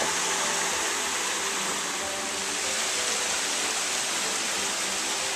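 Waterfall water rushing steadily, a dense even hiss.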